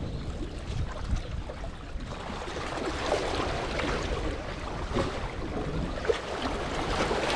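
Seawater washing and splashing among the rocks, with low wind rumble on the microphone; the splashing grows louder about two seconds in.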